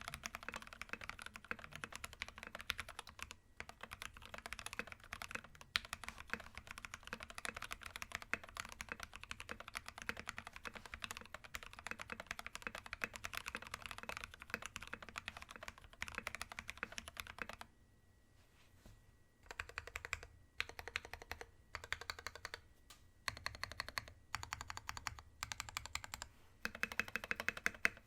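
Typing on an Aquaria 60 mechanical keyboard fitted with lubed Gateron Yellow linear switches, an aluminium plate and MT3 PBT keycaps. Steady fast typing at first, then from about two-thirds of the way through, short bursts of rapid keystrokes separated by brief pauses.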